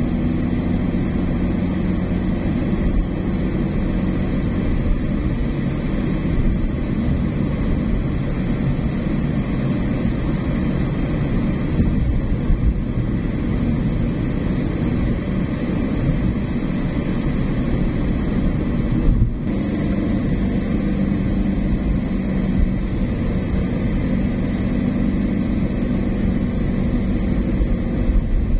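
Steady low rumble of a car's engine and tyres on the road while driving, with a short drop in the sound about two-thirds of the way through.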